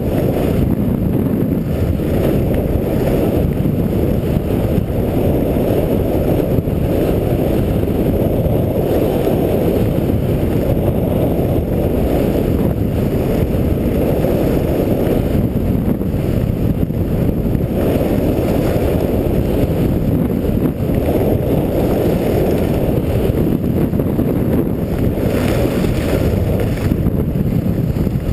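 Steady, loud wind rumble on the microphone of an action camera carried by a skier at speed down a piste.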